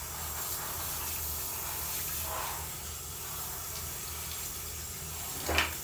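Water spraying from a handheld shower head onto a cat's wet fur, a steady hiss of running water. A brief sharp knock stands out near the end.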